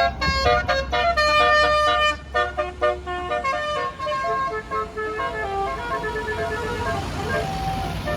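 Bus telolet horn playing a quick tune of stepped, pitched notes, loudest in the first two to three seconds, then carrying on more softly over a low engine rumble.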